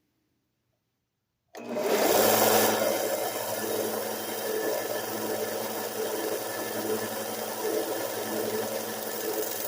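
A 1x30 belt sander starts abruptly after about a second and a half of silence and then runs steadily with a motor hum. It is grinding the bevel of an old Stanley plane iron held in a 25-degree guide, to bring the out-of-square edge back to square.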